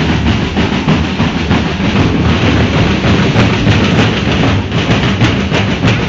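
Ati-Atihan street drumming: a parade drum band beating loud, dense, driving rhythms.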